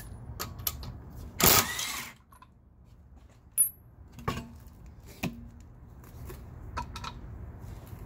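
Ingersoll Rand 20-volt brushless cordless impact wrench hammering for about half a second as it spins out a wheel bolt. Several light metallic clinks follow as the bolt and tools are set down on the ground.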